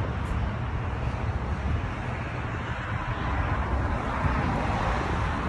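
Steady outdoor rushing noise: wind on the phone's microphone mixed with road traffic, swelling a little a few seconds in.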